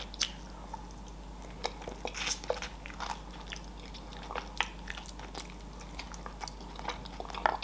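Close-up eating sounds: biting and chewing barbecued pork rib meat off the bone, with scattered short clicks of the mouth and teeth.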